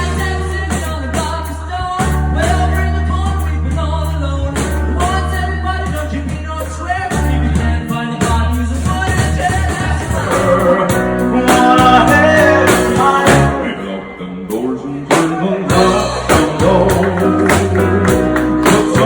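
Background music: a song with singing over a steady bass line and beat.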